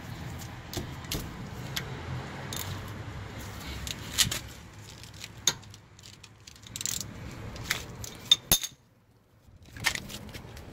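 Scattered metallic clinks and clicks of a socket ratchet and bolts being worked on a Kia Sedona's front brake caliper, with a few sharper clinks in the second half.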